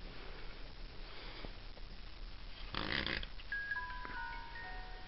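A short breathy rush of noise about three seconds in, then a simple electronic tune of clear single notes stepping up and down begins.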